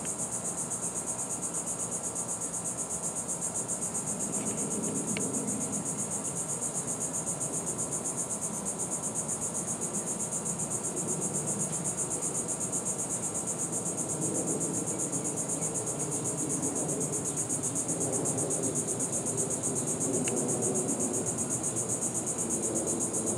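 A steady, high-pitched chorus of insects buzzing with a fast even pulse, over a faint low background hum.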